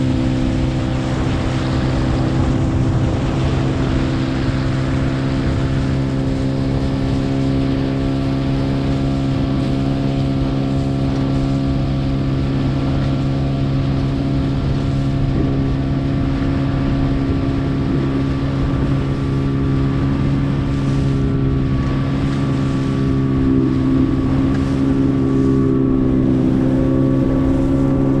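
Gladiator 9.9 hp outboard motor running at a steady speed under way, with wind buffeting the microphone.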